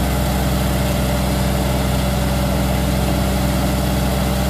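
Engine of a hydraulic transmission-line puller running steadily while its empty bullwheels haul in, with a faint steady whine above the low engine drone.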